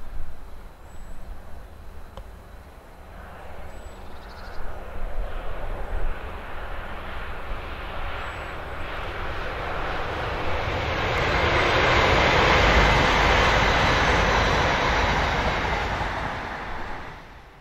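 Passing train: a rush of wheel and traction noise with a low rumble that builds steadily, peaks about two-thirds of the way in and then cuts off abruptly near the end.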